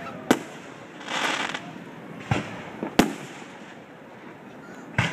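Aerial firework shells bursting: four sharp bangs spread over a few seconds, each with a short echoing tail, and a brief hissing crackle about a second in.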